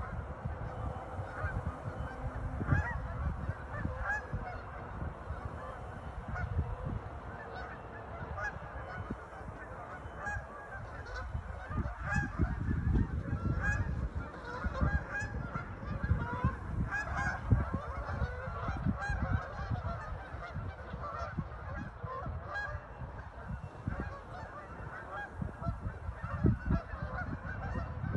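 A flock of waterfowl on a pond calling continuously: a dense chorus of many overlapping short calls, with a low rumble underneath.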